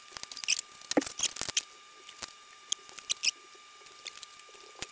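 Thin notched wooden kumiko strips clicking and tapping as their half-lap joints are pressed together by hand. A quick run of small clicks comes in the first second and a half, then scattered single clicks.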